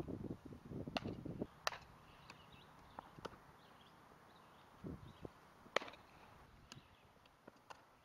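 Softball infield fielding practice: scattered sharp knocks and pops of ball on bat and glove, the loudest about six seconds in, after scuffing and rustling on the dirt in the first second and a half.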